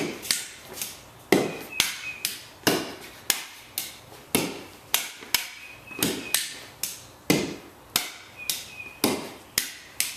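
A ball struck again and again with a tennis racket and rebounding off a board against the wall, a sharp knock about twice a second. Some racket hits have a short ringing ping from the strings.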